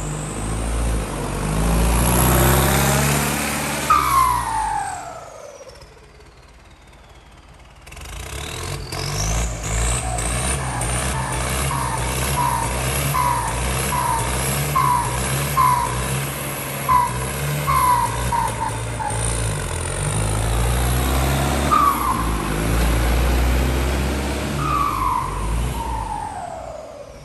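Turbocharged four-cylinder diesel engine of a Ford 6610 tractor running and revving as the tractor drives about, with a high whistle that falls in pitch early on and rises again after a brief quieter stretch.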